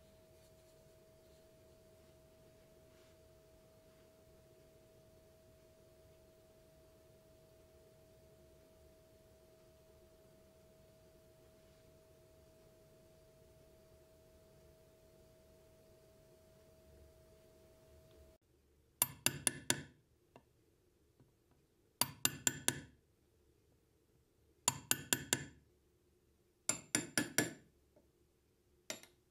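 A faint steady tone, then after a cut a small hammer tapping a metal punch against a gilded wooden cross. The taps come in quick bursts of four or five sharp, ringing strikes, about one burst every two and a half seconds.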